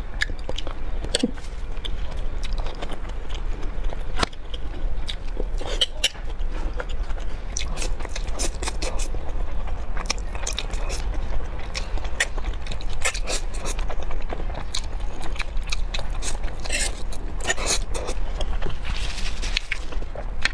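Close-miked eating: a person biting and chewing broccoli and mouthfuls of dark sauced noodles, with many short wet clicks and smacks over a steady low hum.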